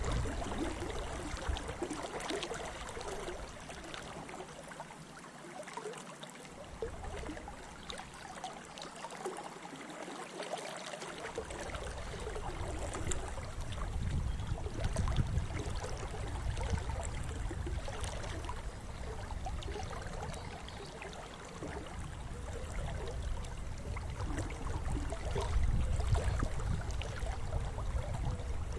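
Flooded spate river flowing and trickling steadily around a wading angler, with a low rumble that comes and goes and is stronger in the second half.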